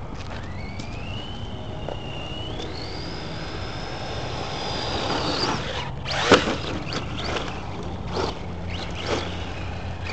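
Electric motor of a radio-controlled truck at full throttle, its whine rising in pitch, jumping higher and holding for a few seconds before cutting off. Then a run of sharp knocks and clatters, the loudest about six seconds in.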